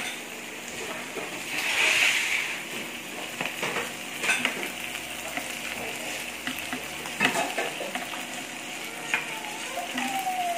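Marinated pork strips sizzling on an electric samgyupsal grill pan, with a louder hiss swelling about two seconds in. Metal utensils and the pot's glass lid clink now and then.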